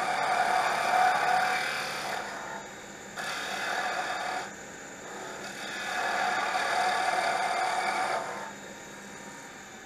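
Wood lathe spinning a pen blank on a slimline pen mandrel at about 2300 RPM while a gouge rides the bevel and cuts it. There are three passes of cutting hiss: from the start, again around four seconds in, and from about six to eight seconds in. Between them the lathe runs on more quietly.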